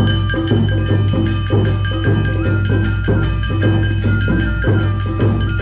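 Awa Odori festival music played live by a hayashi band: drums struck in a steady two-beat rhythm, about two beats a second, under ringing metal bell and melody tones.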